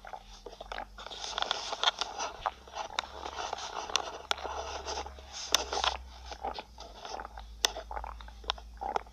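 Cartoon stomach growling: a low rumble under a run of crackly gurgles and sharp clicks, the rumble strongest from about three to seven seconds in.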